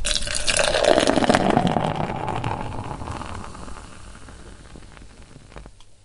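Beer poured in a stream into a glass, starting suddenly with a loud splashing pour. It fades over the last few seconds to faint crackling as the foam settles.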